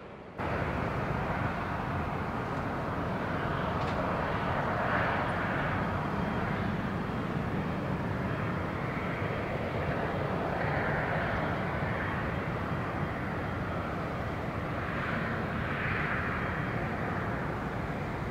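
Jet airliner's engines on final approach: a steady rush of engine noise that cuts in abruptly and swells and eases a few times as the aircraft comes closer.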